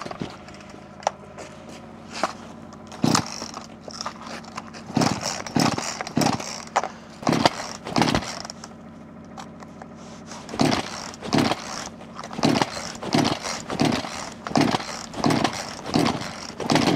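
A cold Stihl chainsaw being pull-started over and over without catching: the rip of the starter cord, a few scattered pulls at first, then a steady run of pulls about every 0.7 s from about ten seconds in. The saw refuses to start in the frost.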